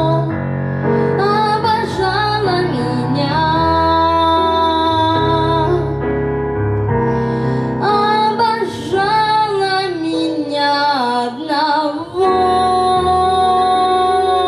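A female voice singing a melody in phrases over an accompaniment of sustained keyboard chords and bass.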